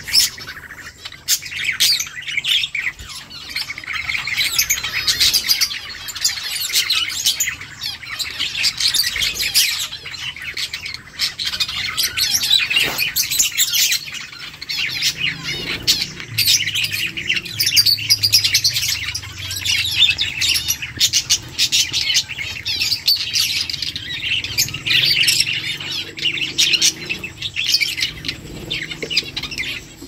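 A flock of lovebirds chattering: a dense, unbroken stream of high-pitched chirps and squawks.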